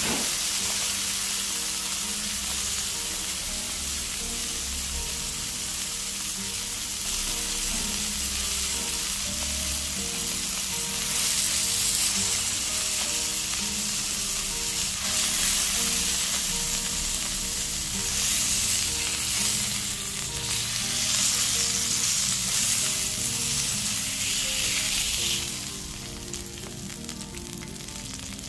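Sirloin steak sizzling and spitting in a hot pan as its edges are seared, over quiet background music. The sizzle drops away about three seconds before the end.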